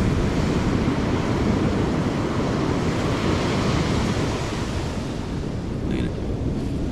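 Ocean surf washing onto a sandy beach, with wind buffeting the microphone as a low rumble. The hiss of the breaking wave swells around the middle and eases off in the last couple of seconds.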